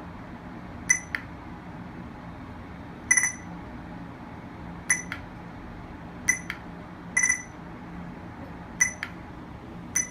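Radar detectors giving short electronic alert beeps, singly or in quick pairs, at irregular intervals of a second or two, as they pick up a RADIS radar gun. A steady low hum runs underneath.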